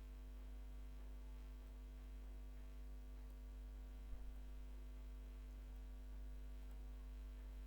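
Steady low electrical hum with a stack of even overtones, picked up by the recording microphone, with one faint click about four seconds in.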